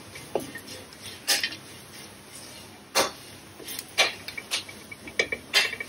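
A steel spoon scrapes and knocks against a nonstick pan as fried onions, ginger and green chillies are stirred. The clicks and scrapes come irregularly, the loudest about three seconds in.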